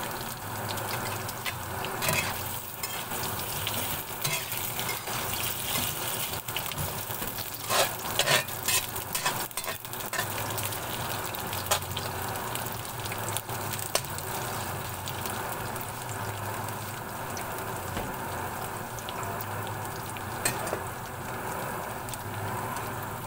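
Potato slices frying in oil with chopped garlic and onion in a metal wok: a steady sizzle, with a metal spatula now and then scraping and clicking against the pan as the slices are stirred.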